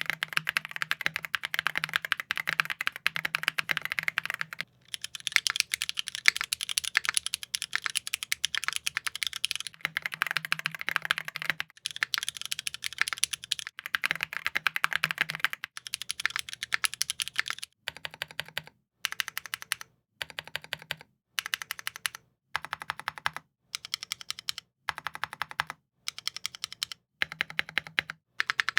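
Typing on a Keychron Ultra mechanical keyboard with pre-lubed Silk POM switches: a fast, continuous run of key clicks with a few brief pauses, turning about two thirds of the way through into short bursts of keystrokes about once a second.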